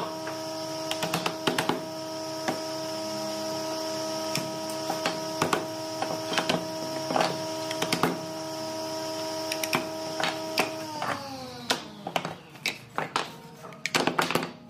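Sharp knocks of a mallet striking pine frame joints to knock them apart, coming thicker near the end. Under them a motor hums steadily, then winds down in pitch about eleven seconds in, as it is switched off.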